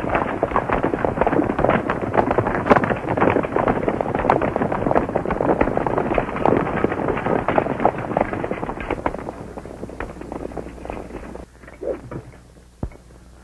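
Hooves of a group of galloping horses in a dense, irregular clatter that fades away about ten seconds in, leaving a few single knocks over a steady low hum.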